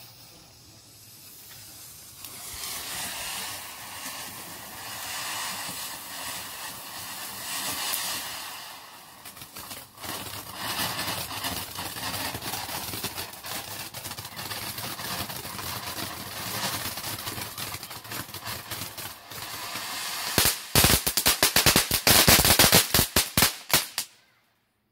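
Jombo Rocket Fountain 20 ground fountain firework spraying sparks with a steady hiss that builds about two seconds in, with crackling through the middle. About twenty seconds in it breaks into a rapid run of loud cracks, then cuts off suddenly near the end.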